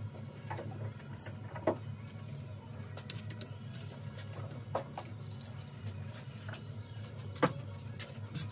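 Clamps being handled on a wooden chest: scattered metallic clinks and sharp knocks, the loudest about a second in and another near the end, over a steady low hum.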